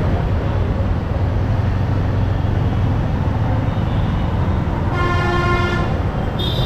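Steady rumble of road and wind noise from riding a motorcycle in traffic. A vehicle horn sounds for under a second about five seconds in, and a shorter, higher beep follows near the end.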